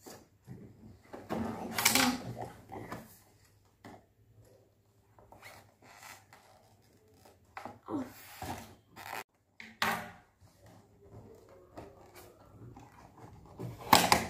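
Knife scraping and cutting through the cardboard and tape of a doll box, in irregular bouts of scraping and rubbing, with a louder burst of cardboard handling near the end.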